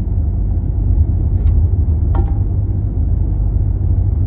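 Steady low rumble, with a couple of short faint clicks about one and a half and two seconds in.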